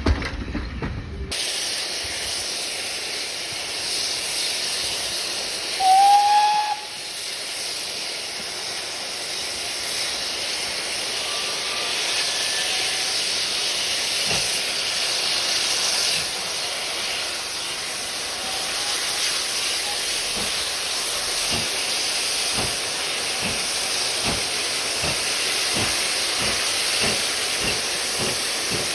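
Steam locomotive hissing steam steadily, with one short whistle toot about six seconds in.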